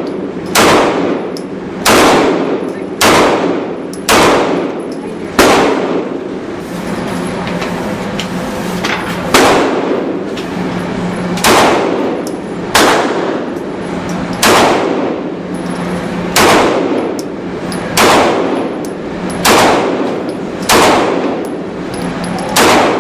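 Handgun shots in an indoor firing range, each with a ringing echo, about fourteen of them one to two seconds apart, with a brief pause after the first five. A steady low hum runs underneath.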